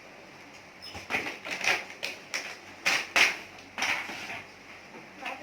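Irregular rustling and clicking of a toy box and its plastic packaging being handled and pulled open, in short bursts clustered in the middle.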